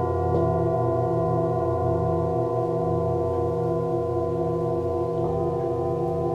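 Several singing bowls ringing together in long, overlapping tones that pulse slowly as they beat against each other. A fresh bowl is struck softly about half a second in, and another a little after five seconds.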